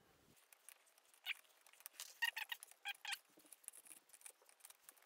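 Cardboard game tiles being laid on a folding game board and pushed into place by hand: faint taps and scrapes, with a few short squeaky sounds around the middle.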